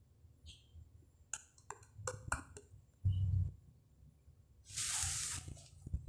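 Sound effects from a phone's video played over Bluetooth through a car stereo's speakers: a quick run of clicks and short tones, a low boom about three seconds in, and a hissing whoosh near the end.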